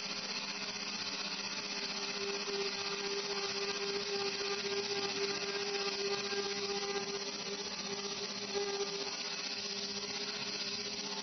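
Haas VF-2 vertical CNC mill's spindle driving an end mill that cuts a cavity in a metal block: a steady machine whir with a constant hum.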